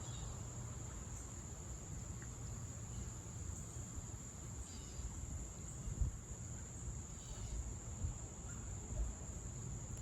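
Steady, high-pitched chorus of crickets, unbroken throughout, over a low rumble with a few soft bumps, the strongest about six seconds in.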